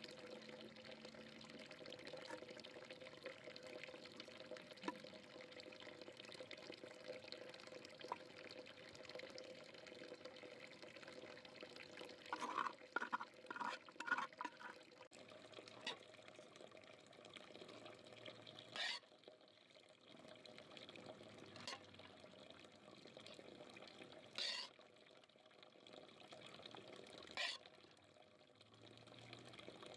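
Faint steady hiss, with a metal spoon knocking and scraping against an aluminium cooking pot: a quick cluster of short clinks about halfway through, then a few single scrapes spaced several seconds apart.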